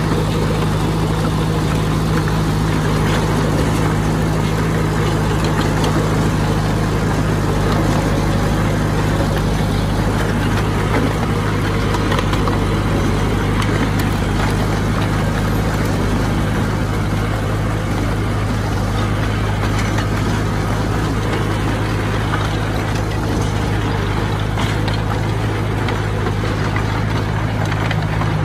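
Heavy earthmoving machine's engine running at a steady speed, a constant low drone with no change in pitch or load.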